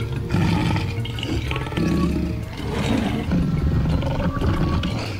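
Recorded lion roaring and growling, several roars in a row.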